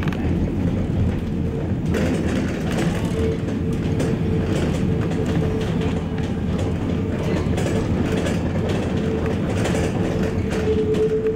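Tram running along street track, heard from inside the car: a steady rumble of wheels on rail with light clicks, and a steady motor whine that grows louder near the end.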